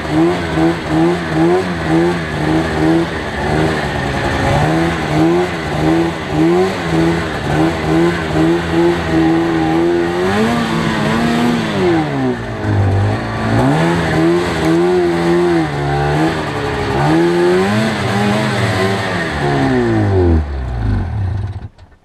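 Arctic Cat snowmobile engine running under load through deep powder, the revs rising and falling about twice a second at first, then in longer swells. The pitch sinks near the end and the sound stops sharply.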